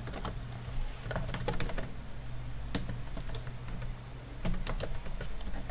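Typing on a computer keyboard: irregular keystrokes in short runs, with a pause of about a second and a half just past the middle, over a faint steady low hum.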